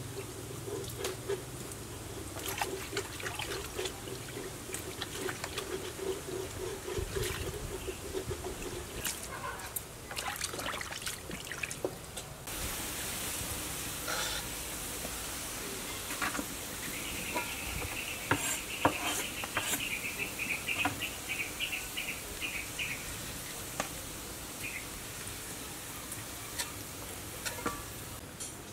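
Hands swishing and rubbing leafy greens in a plastic basin of water, with small splashes and knocks. About twelve seconds in it changes to chopped garlic sizzling steadily in oil in a wok, a metal spatula stirring and scraping against it.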